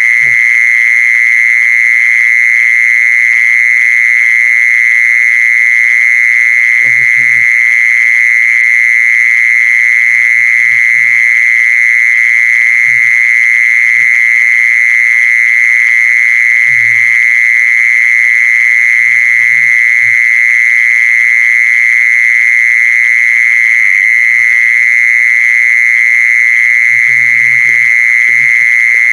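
Mole cricket singing a continuous, loud, steady high trill. The call is unbroken, with brief faint low sounds now and then.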